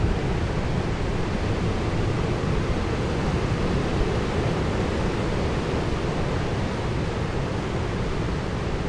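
Steady rush of sea waves and surf, with heavy low rumble from wind on the microphone.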